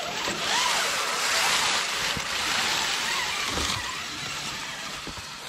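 Dry fallen leaves rustling and crackling as an RC rock crawler's tyres spin and dig through them. The noise is loudest in the first few seconds and fades towards the end.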